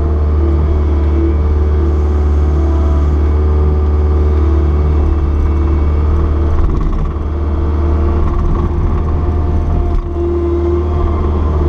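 Caterpillar 236B skid steer's diesel engine running steadily, a deep drone with a steady whine above it; the engine note dips briefly about seven and ten seconds in.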